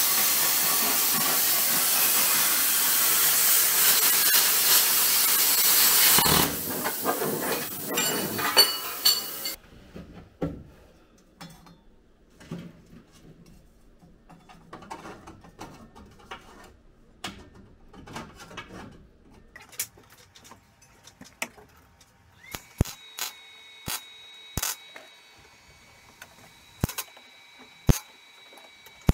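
Plasma cutter cutting sheet steel: a loud steady hiss that changes about six seconds in and stops about nine seconds in. It is followed by quieter clattering of the metal being handled. Near the end come a few short sharp cracks as the panel is tack-welded in place.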